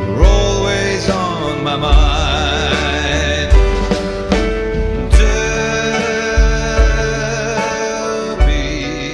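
Country band music: a steady drum beat under guitars and keyboard chords, with a lead melody that wavers in pitch.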